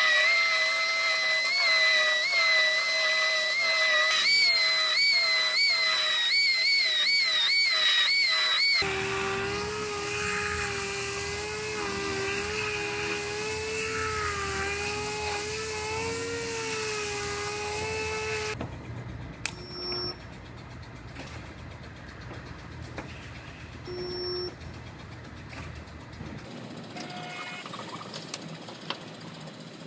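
Pneumatic belt file sander whining at a high steady pitch on a welded steel seam. From about four seconds in, the pitch dips again and again in quick strokes as it is pressed into the metal. Around nine seconds in, a dual-action sander takes over with a lower, wavering whine. In the last third only a few short tool bursts and clicks are heard.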